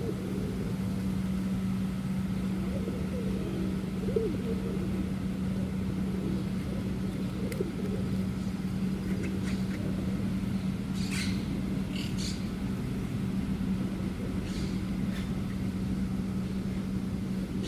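A steady low motor hum with rumble underneath, and a few short, harsh bird calls in the second half, three in quick succession and one more a couple of seconds later.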